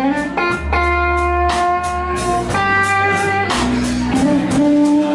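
A Fender Stratocaster through a Bugera V55 amp plays a slow-blues guitar fill of three long sustained notes, the middle one higher, over electric bass and drums with cymbal hits.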